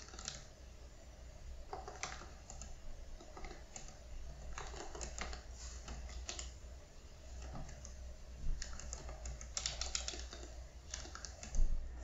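Typing on a MacBook Pro laptop keyboard: irregular runs of quick key clicks with short pauses, faster and louder in the second half. There is a dull thump near the end.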